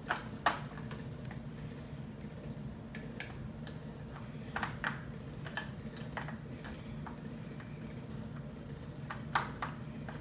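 Scattered light clicks and knocks of plastic vacuum-cleaner parts being handled and fitted together, the sharpest about half a second in and near the end, over a steady low hum.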